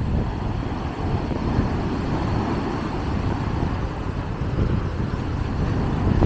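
Rough sea surf breaking onto the beach, with strong wind buffeting the microphone into a steady low rumble.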